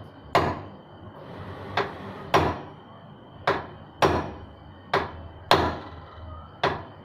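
Hand hammer striking, about eight sharp blows that mostly fall in pairs about half a second apart, each pair a second or so from the next.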